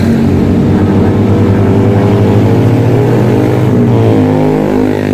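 A motor vehicle engine running with a loud, steady low drone; about four seconds in its pitch glides up and back down.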